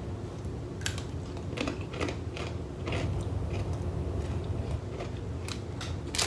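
Someone biting and chewing crunchy bacon-flavoured pretzels: a series of short crunches, several close together in the first half and another cluster near the end, over a steady low hum.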